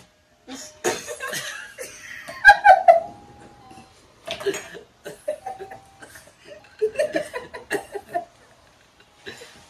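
Two people laughing in fits, in several bursts with short gaps between them.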